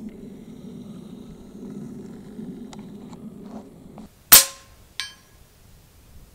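FX Panthera .25 calibre PCP air rifle firing a single shot, one sharp loud crack. About two-thirds of a second later comes a fainter ping of the slug striking the distant steel plate, which rings briefly.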